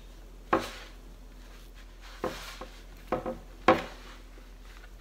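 Shortcrust pastry dough kneaded by hand on a wooden pastry board: a few short knocks as the hands press the dough down onto the board, with soft rubbing between them.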